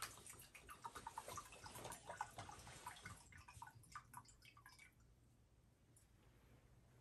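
Water poured in a thin stream from a small glass cruet into a gold-coloured chalice, faintly trickling and dripping; this is the rinsing of the chalice after communion. The pouring stops about five seconds in.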